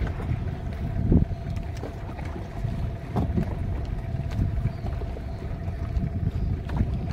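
Choppy water slapping against the hull of a small fishing boat, with a few louder knocks among the steady lapping, wind rumbling on the microphone, and a faint steady hum.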